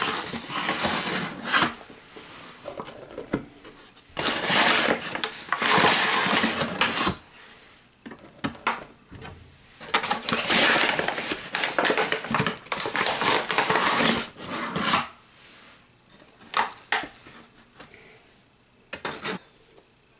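All-purpose flour poured by the cupful into a stainless steel mixing bowl: three rushes of a few seconds each, with clinks of the cup against the metal bowl, then a few scattered sharp taps near the end.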